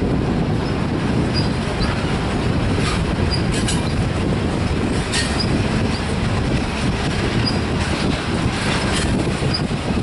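Loaded covered hopper cars of a freight grain train rolling past: a steady rumble of wheels on rail, with a few knocks and short high wheel squeaks every second or two.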